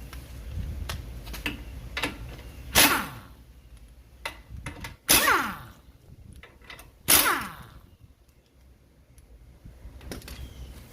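Three loud, sharp metal-on-metal clanks about two seconds apart, each ringing briefly, from work on the car's front suspension, with lighter tool clicks between them.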